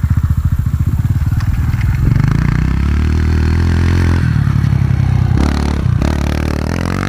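Small four-stroke dirt bike engines: first an even putter of a bike idling close by, then a Yamaha TT-R's single-cylinder engine on the throttle, its pitch rising about two seconds in as it rides up and passes close. A short scrabbling rush comes near the pass, and the engine note drops off right at the end.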